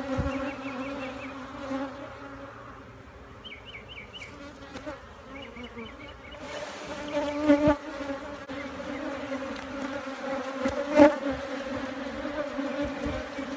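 Honey bees buzzing in a steady hum over an open hive, with a couple of knocks about halfway through and again near the end.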